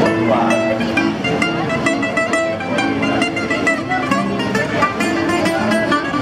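Instrumental music led by plucked string instruments playing quick picked notes.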